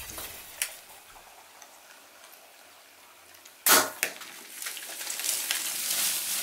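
A single sharp bow shot a little past halfway through, the arrow striking a feral hog, with a smaller click just after. Then the hogs bolt, a rising scuffle of hooves and rustling on the dirt and brush.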